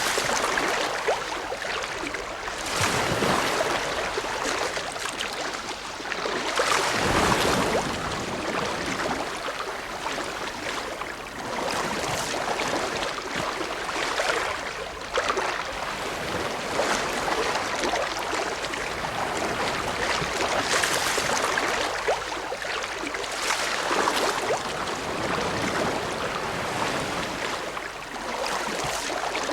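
Ocean waves breaking and washing in, a continuous rush of surf that swells and falls back every few seconds.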